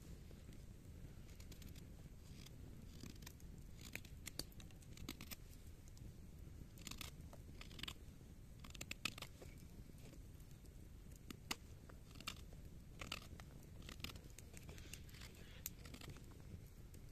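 Ahti Vaara puukko knife whittling a wooden stick: quiet, short crisp slicing and scraping strokes as shavings come off the wood, at irregular intervals.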